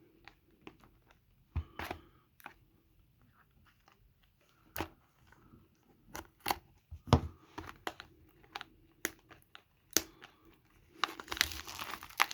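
Small kid's scissors snipping and plastic wrapping crinkling and tearing as a sealed box of hockey cards is cut open. Scattered sharp clicks and crackles, then steady crinkling near the end.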